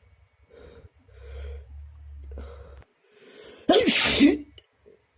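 A person sneezing: a few soft, hitching breaths build up, then one loud sneeze bursts out about two-thirds of the way in.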